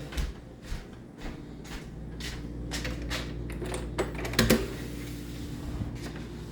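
Footsteps, about two a second, over a steady low hum, with a louder knock about four and a half seconds in.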